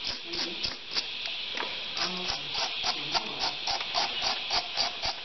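Wire brush scrubbing a badly corroded battery cable terminal, short scraping strokes about four a second, cleaning it down for good contact.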